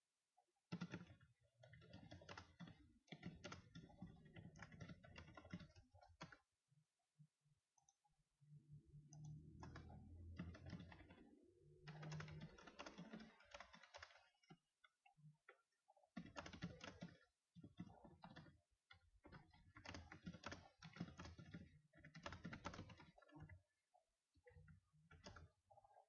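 Faint typing on a computer keyboard: bursts of quick key clicks with pauses of a second or two between them, and a low rumble under the typing in the middle.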